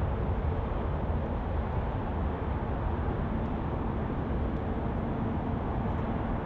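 Airbus A320 on final approach with gear down, its jet engines a steady distant rumble with a faint hum.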